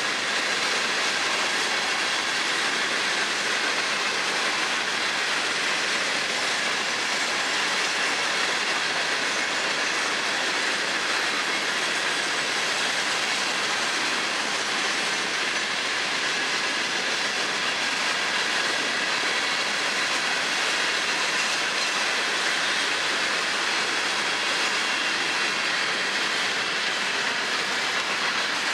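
Loaded hopper cars of a long freight train rolling past across a low concrete bridge: a steady, unbroken noise of steel wheels on rail.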